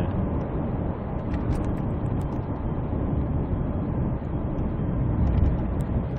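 Steady road and engine noise inside a moving car's cabin at highway speed, a low, even rumble that does not change.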